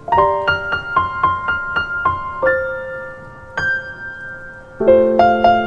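Background piano music: a gentle melody of quick single notes, then a few held notes, with fuller chords coming in near the end.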